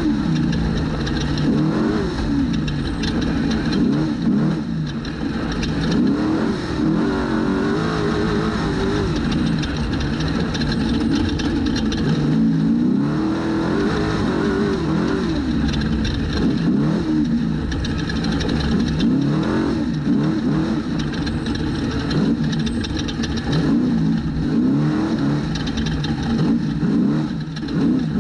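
Trophy truck engine revving hard, its pitch climbing and dropping again and again as the driver accelerates and lifts, with frequent short knocks and rattles.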